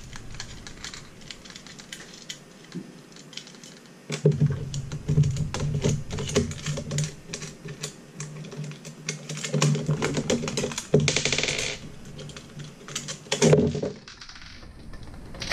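Small metal hardware and an aluminium heatsink plate being handled: many light clicks and rattles as the solid state relays are taken back off the plate. There is a brief rasp about eleven seconds in and a louder knock near the end.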